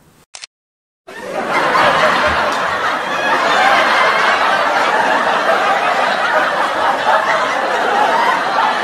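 A short click, then about a second in, a loud, steady track of many people laughing starts: a canned audience laugh track.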